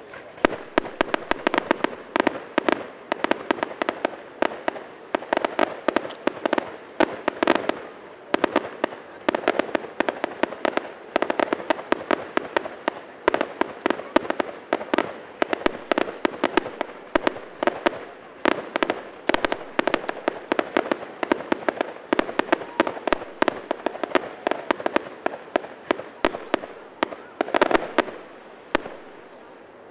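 Fireworks display: a dense, continuous barrage of sharp bangs and crackles, several a second, with a short lull near the end.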